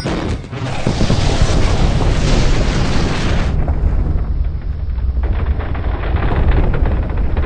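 Cartoon explosion sound effect: a long, loud rumbling blast that keeps rolling. Its upper hiss drops away about three and a half seconds in.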